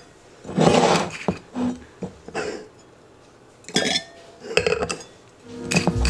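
Kitchen clatter: about half a dozen separate clinks and knocks of dishes, glassware and utensils being handled and set down. Background music comes in near the end.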